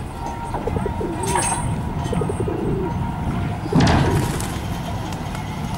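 Pigeons cooing in short repeated calls over a low steady rumble, with a brief louder sound about four seconds in.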